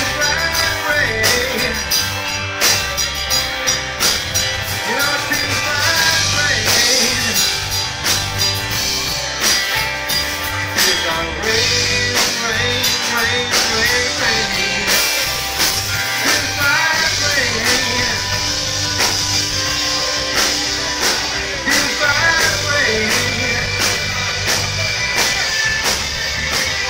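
Live rock band playing loudly: electric guitar, bass guitar and drum kit with a steady beat, and a male singer's vocal over the top.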